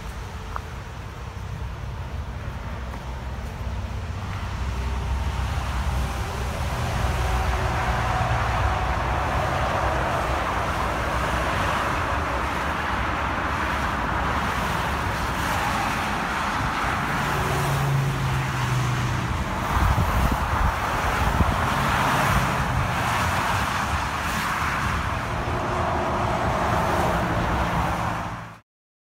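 Steady rush of road traffic, swelling now and then as vehicles pass.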